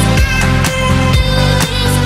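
Background electronic dance music with a steady beat, about two beats a second, over a sustained bass line.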